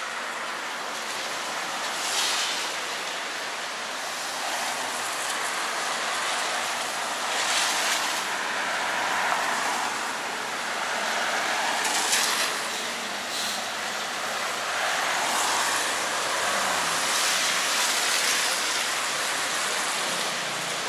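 Traffic on a rain-wet city street: a steady hiss, with cars passing every few seconds and their tyres swishing on the wet road.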